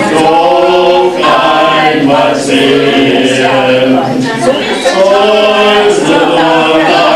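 Two men singing a song together into hand-held microphones, amplified through a PA loudspeaker, with long held notes.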